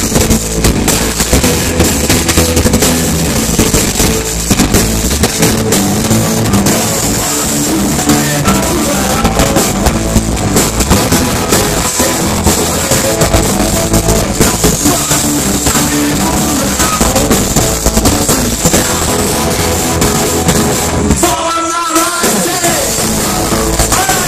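Rock band playing live and loud through a PA: drum kit, electric guitars and bass, with a singer. Near the end the band stops for a moment, then comes crashing back in.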